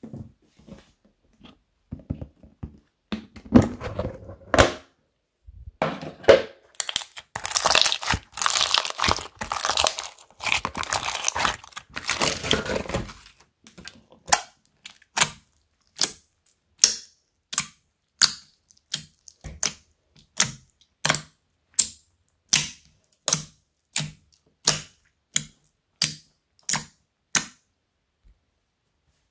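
Slime with foam beads being squished and mixed by hand: dense crinkling, crackling squelches for the first half. About halfway through it changes to an even run of short clicking pops, about one and a half a second, as the slime is pressed over and over.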